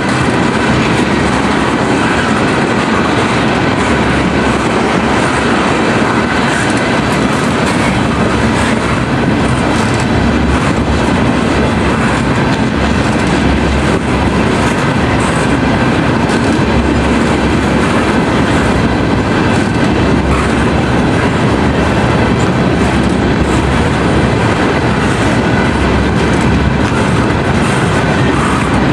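A freight train of tank cars rolling past at close range, a steady loud rumble with its steel wheels clicking over the rail joints.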